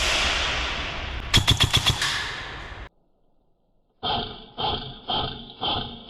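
A rapid burst of about six shots from an airsoft gun over a rushing noise, cut off abruptly. After about a second of silence come five pitched hits about half a second apart, each ringing and fading, like an edited sound effect.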